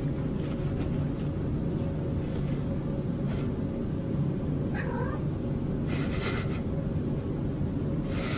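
A cat vocalising close to the microphone: a steady low rumbling sound throughout, broken by a short falling meow about five seconds in and a few brief breathy bursts.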